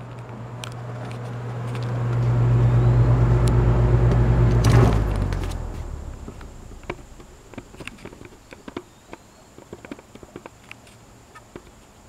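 Galaxy box fan running: its electric motor gives a loud, steady low buzzing hum that swells over the first few seconds and fades away about six seconds in, leaving a quieter whir with scattered light clicks.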